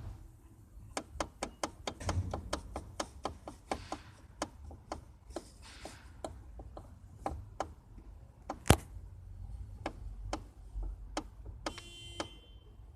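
Steering column of a 2013 Kia Rio knocking: a run of sharp, irregular knocks, several a second at first and sparser later, with one loudest knock a little before two-thirds of the way through; the knock is the steering-column fault. A low steady rumble lies underneath, and a brief tone sounds near the end.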